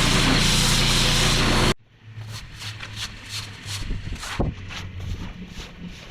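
Pressure washer engine running under a steady spray hiss, cutting off abruptly about two seconds in. Quieter irregular clicks and taps follow over a faint hum.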